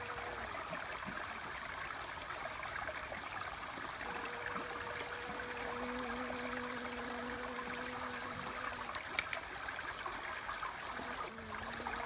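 Water trickling and running steadily, with a honeybee's steady buzzing hum joining about a third of the way in and dropping away shortly before the end.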